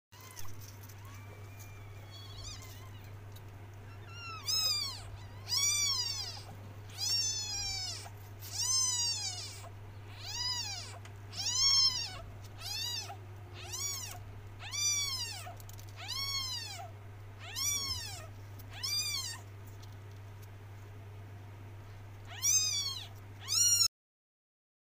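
Eight-day-old kittens mewing: high-pitched calls that rise and fall, about one a second, with a pause before two last mews near the end. A steady low hum runs underneath.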